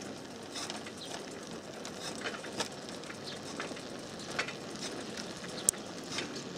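Bicycle rolling along a paved road: steady tyre and road noise with frequent small clicks and rattles, and one sharper click near the end.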